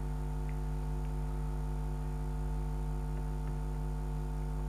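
Steady electrical hum: a low drone with a ladder of fainter, higher steady tones above it, unchanging in level.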